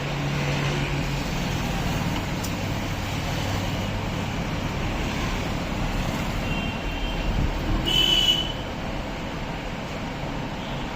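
Steady road traffic noise with a low hum. A brief high tone sounds about seven seconds in, and a louder one about eight seconds in.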